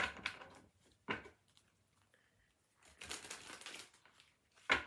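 A deck of tarot cards being shuffled and handled: short papery slaps near the start, about a second in and near the end, with a spell of rustling shuffling between them.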